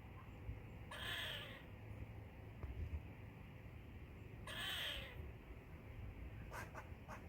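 Squirrel calling: two drawn-out calls a few seconds apart, then a quick run of short chirps near the end.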